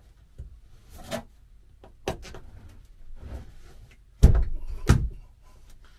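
Plastic push-pin trim fasteners being pressed through a carpeted panel into a van's sheet-metal door, heard as a series of about five knocks and thumps as the panel is pushed against the door. The two loudest thumps come about four and five seconds in.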